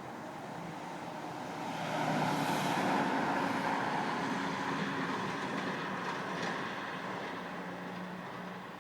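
A road vehicle passing by: its tyre and engine noise swells to a peak a couple of seconds in, then slowly fades away.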